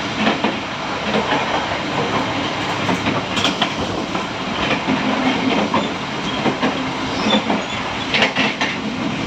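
Train running on the track: steady wheel-on-rail noise with irregular clicks, a few of them sharper and louder about three seconds in and again near the end.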